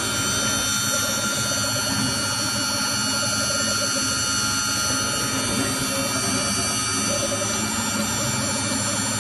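Spindle of a 5-axis CNC router milling an aluminum impeller: a steady machining noise with several high, held whining tones over it.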